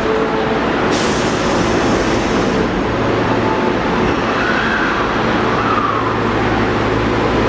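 Osaka Metro 21 series subway train at a platform. Its doors close about a second in with a sharp clunk and a hiss that fades away, over the steady hum of the standing train. Later a faint whine rises and falls as the train starts to pull out.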